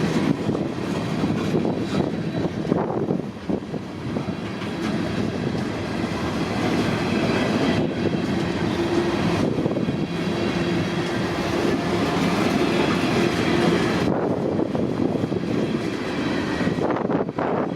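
Freight train's cars rolling past on the rails, a continuous rumble with wheels clicking over the rail joints.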